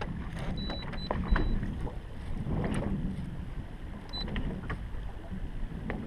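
Wind buffeting the microphone and water against the hull of a small fishing boat, a steady low rumble, with a few scattered light clicks and a couple of brief high-pitched tones.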